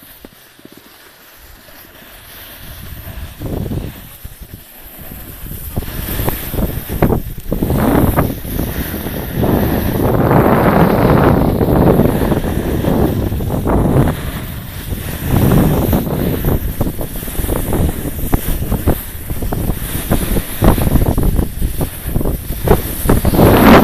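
Wind noise buffeting the microphone of a camera carried downhill on skis, rising from quiet to loud within the first few seconds and then gusting unevenly.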